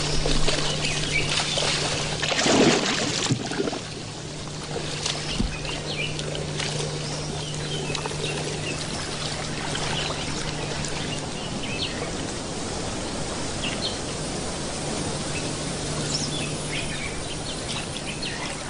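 Water splashing and sloshing around mating Nile crocodiles, louder for the first three or four seconds, then settling to a steady trickling wash. Many short, high bird chirps are scattered throughout.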